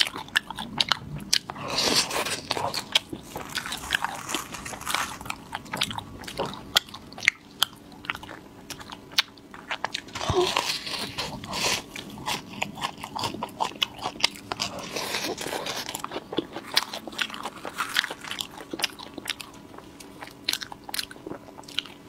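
Close-miked eating: wet chewing and lip smacking with many small mouth clicks, as mouthfuls of a soft, stretchy baked dessert are bitten and chewed.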